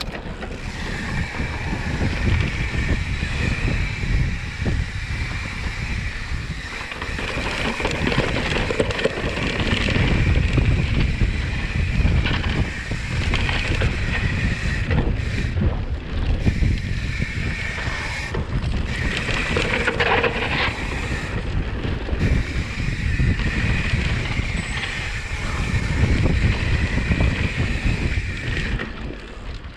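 Wind buffeting the microphone of a camera mounted on a mountain bike riding fast along a dirt trail, with tyre and ride noise rising and falling over the terrain and a steady high whine running through most of it.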